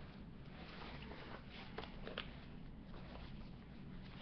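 Faint rustling of a waxed cotton jacket as its belt is threaded and buckled at the waist, with a couple of small clicks about two seconds in, over a low steady background hum.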